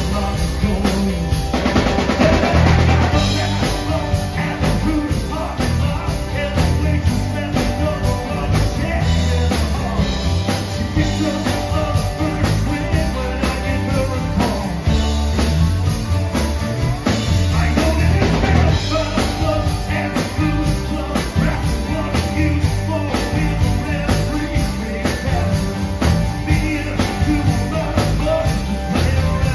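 Rock band playing an instrumental passage, a drum kit keeping a steady beat under guitars.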